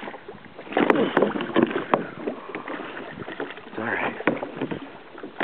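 Water splashing and slapping against a plastic sit-on kayak in irregular bursts, loudest about one to two seconds in.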